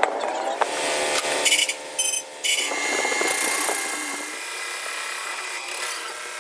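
A power tool running with a steady whine, the sound dipping briefly about two seconds in.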